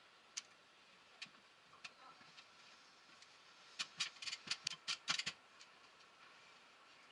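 Sharp clicks and taps of small hard objects: three single clicks spaced about a second apart, then a quick run of about a dozen clicks near the middle.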